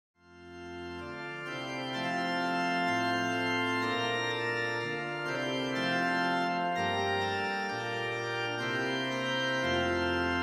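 Organ music: slow, held chords over a bass line that steps to a new note every second or so, fading in over the first couple of seconds.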